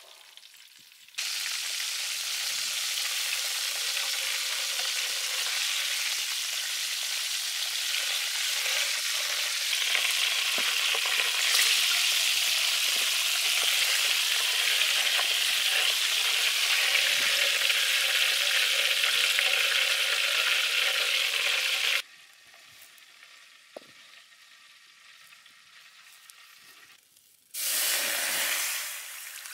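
A whole Muscovy duck deep-frying in a wok of hot oil, a loud, steady sizzle that cuts off suddenly about three-quarters of the way through. Near the end, coconut water pours from a green coconut into the wok with a short splashing rush.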